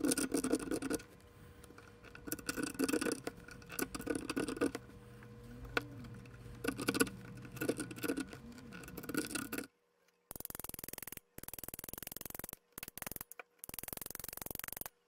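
Adhesive tape being picked at with fingernails and peeled off the glass envelope of a photomultiplier tube. Irregular scratchy rubbing bursts come about once a second. About ten seconds in they give way to choppy stretches of crackly peeling noise that cut off suddenly several times.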